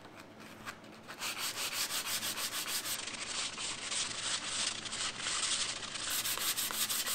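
Hand sanding with 120-grit paper on a pad over tough epoxy primer on a Vespa 50's metal body panel: fast, even back-and-forth rasping strokes that start about a second in.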